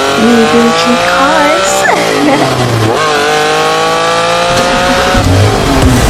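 Car engine accelerating hard, its pitch climbing, dropping sharply at a gear change about two seconds in and again about a second later, then climbing again.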